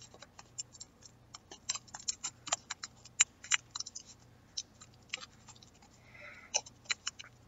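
Faint, irregular small clicks and crinkles of clear tape being pressed and wrapped by hand around a foam Nerf dart, with a brief soft rustle about six seconds in.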